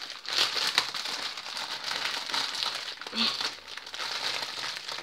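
Crinkly plastic being handled: small plastic bags of diamond-painting drills rustled and shifted by hand, with a few small clicks near the start.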